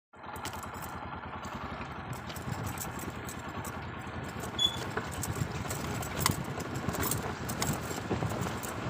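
A vehicle running on the move, with a steady low rumble and hiss and irregular sharp clicks and rattles throughout.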